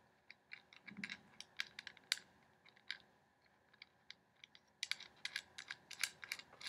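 Light, irregular clicks and taps of small metal and plastic parts being handled: a tripod's quick-release plate and its camera mounting screw. The clicks are scattered at first, pause briefly past the middle, then come thick and fast near the end.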